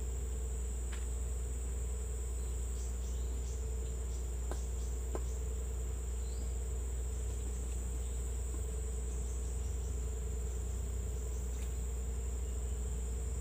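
Steady chorus of insects with a constant high-pitched trill, over a continuous low rumble and a few faint scattered clicks.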